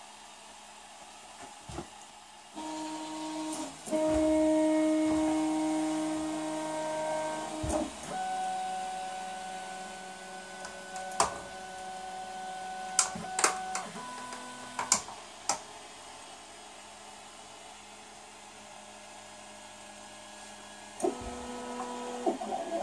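Prusa i3 MK2S 3D printer's stepper motors whining at steady pitches as the axes move. The pitch jumps to a new note every few seconds as the moves change, with a few sharp clicks in the middle.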